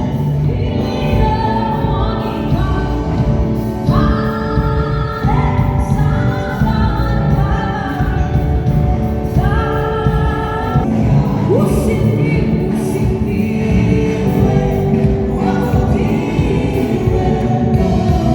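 Live gospel worship music: a choir singing with a band behind them.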